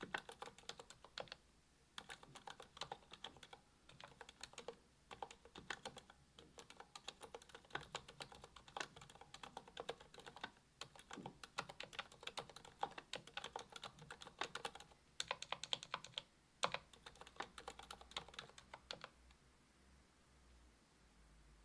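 Typing on a Monstargear XO V2 aluminium mechanical keyboard with a brass plate, ZealPC Healios V2 67 g silent linear switches and GMK keycaps: rapid, uneven runs of keystrokes with short pauses, stopping near the end.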